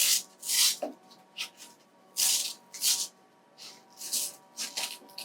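Velcro One-Wrap hook-and-loop strap rasping as it is handled and laid into place: a quick, irregular series of short scratchy strokes.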